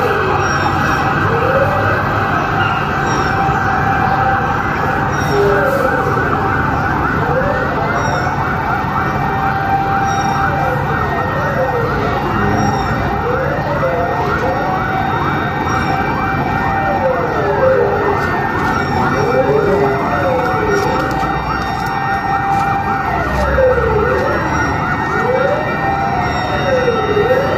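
Siren wailing, its pitch rising and falling every couple of seconds, with more than one wail overlapping over a steady background noise.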